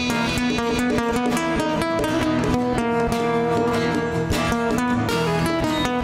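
Instrumental passage of a nylon-string classical guitar and a steel-string acoustic guitar playing together, picked and strummed notes, with congas.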